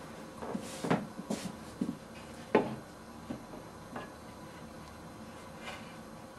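Knocks and clatter of a wooden chipboard lid being handled against a wooden box frame: a run of short knocks in the first four seconds, the loudest about two and a half seconds in, then one faint knock near the end.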